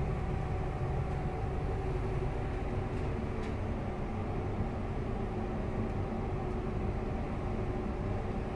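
Steady low rumble of a passenger ship's engines and machinery heard from inside the vessel, with a steady hum over it.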